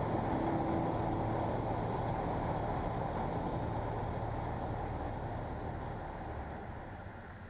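Light aircraft's engine and propeller running steadily in flight, a dense drone that slowly fades down over the last few seconds.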